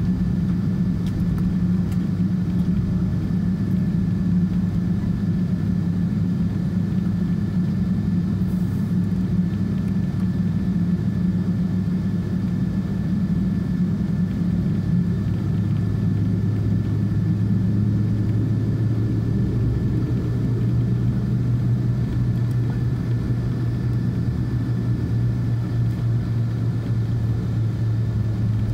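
Inside the cabin of a Boeing 777-200ER taxiing, its GE90 engines at idle: a steady low rumble whose deepest hum shifts lower about halfway through.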